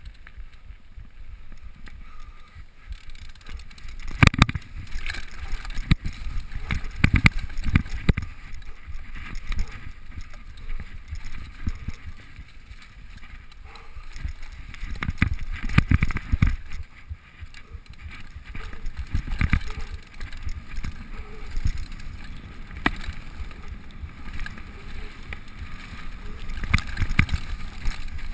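Mountain bike rolling fast down a dirt forest trail, heard from a camera on the rider: a continuous rumble of tyres on the ground with wind on the microphone. Repeated sharp knocks and rattles come from the bike hitting bumps and roots, the loudest about four seconds in and around the middle.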